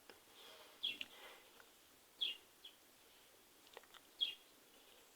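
A bird chirping faintly in the background: three short, high, downward-sliding chirps, one every one and a half to two seconds.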